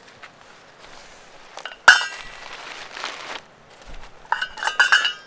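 Metal camping cookware being handled: one sharp ringing clank about two seconds in, then a quick run of clinks and rattles near the end.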